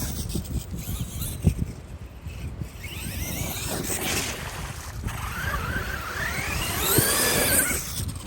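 Electric RC monster truck's motor and drivetrain whining up in pitch under throttle, briefly about three seconds in and again for longer from about five and a half seconds, over a low rumble. It sounds as if something broke, which the driver puts down to a wet ESC.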